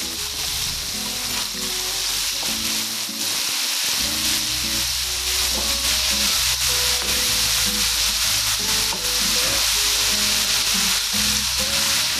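Flour-coated bone-in chicken pieces shallow-frying in hot oil, a steady sizzle that grows a little louder a few seconds in.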